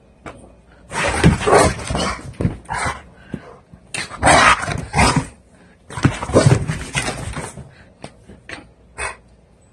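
Blue pit bull barking and whining at the owner in three long bouts and a short one near the end. This is his way of signalling that he needs to go out to relieve himself.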